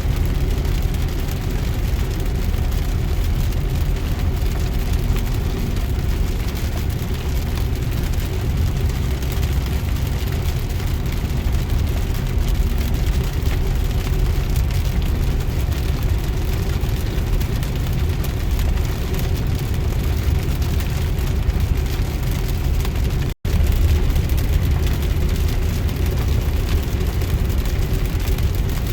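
Steady low rumble of road and engine noise inside a moving car's cabin, with a wash of rain and wind on the windshield. The sound cuts out for an instant about 23 seconds in, then resumes.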